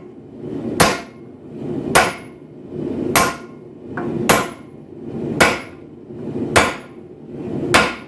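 A 4-pound hand hammer striking hot steel on an anvil, drawing out a punch by hand. There are seven heavy blows at a steady pace of about one a second, each with a short metallic ring, and one lighter tap between two of them.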